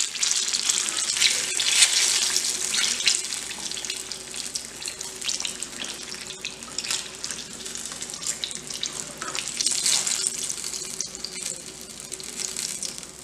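Hot oil in a kadai sizzling and crackling around eggplant pakoras in their second, crisping fry, the water in the eggplant making it spit. The sizzle is fullest for the first couple of seconds, then thins as the pakoras are lifted out of the oil.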